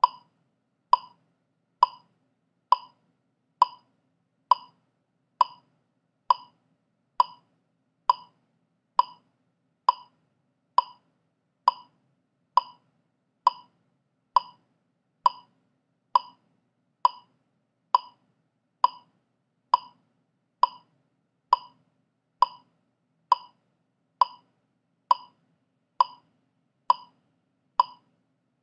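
Metronome click track ticking steadily at 67 beats per minute: a short, sharp click a little under once a second, every click the same, with no accented beat.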